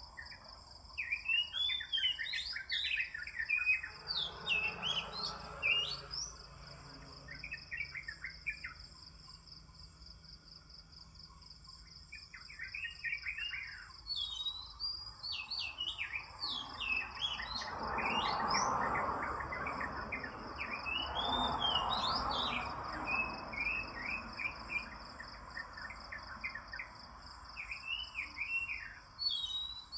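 Oriental magpie-robin (kacer) singing in bouts of quick, varied whistled phrases that sweep up and down in pitch, over a steady high-pitched buzz.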